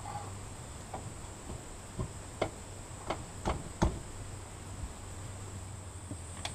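A handful of sharp knocks and clicks of metal engine parts being handled and seated on a Yamaha F50 four-stroke outboard's engine block, bunched in the first four seconds, over a steady high-pitched drone and a low hum.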